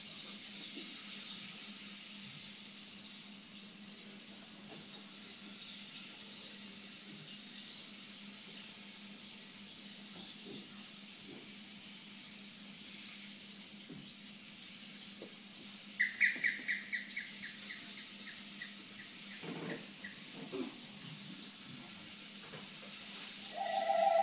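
Soft percussion passage: a quiet, water-like rushing hiss with scattered faint ticks, then about 16 s in a quick run of about ten ringing metallic strikes that fade away. Near the end, sustained pitched notes come in and the sound grows louder.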